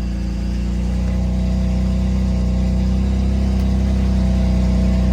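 BMW M4's S55 twin-turbo inline-six idling steadily just after being started.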